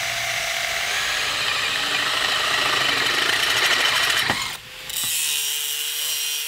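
Power drill boring through steel square tubing, its motor whine falling slightly as the bit bites into the metal. About four and a half seconds in it stops, and an angle grinder takes over cutting steel, its disc whining at a steady pitch over a hiss of grinding.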